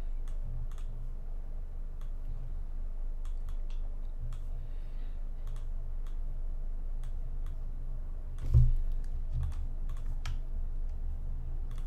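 Scattered light clicks from a computer mouse and keyboard at a desk, over a steady low hum, with one dull thump about two-thirds of the way through.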